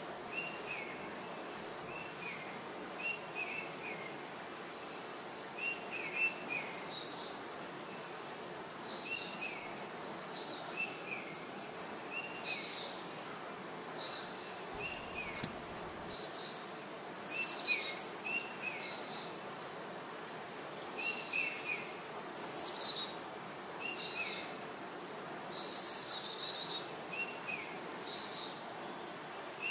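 Small birds chirping, with short calls repeating every second or so at two different pitches, over a steady background hiss.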